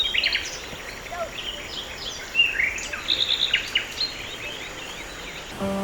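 Several birds chirping with many short, quick notes over a steady hiss of outdoor ambience. Music starts just before the end.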